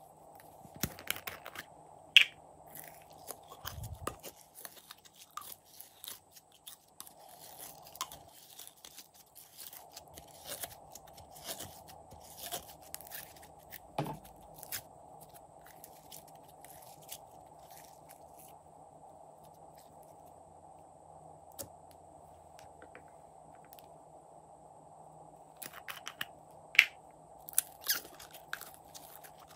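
Hands handling small plastic bottles and squeezing glossy slime out of them: scattered sticky clicks and crackles. The sharpest clicks come in clusters early on and again near the end.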